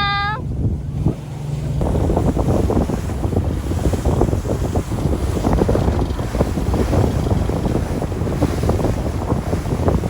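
Wind buffeting the microphone on a boat under way at sea, over a low rumble of engine and water. It grows rougher and gustier about two seconds in.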